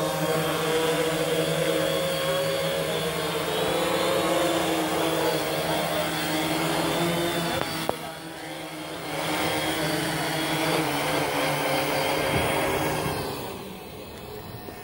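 Small quadcopter drone's propellers buzzing steadily as it hovers low, the pitch wavering slightly. The sound drops briefly about eight seconds in, comes back, then fades near the end.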